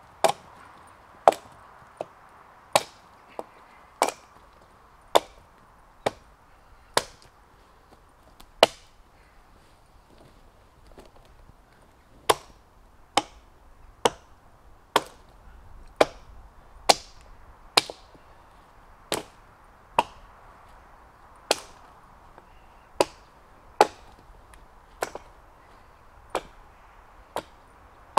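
Hultafors Hunter's Axe chopping the branches off a felled tree trunk: sharp single strikes about one a second, with a pause of a few seconds a little before the middle.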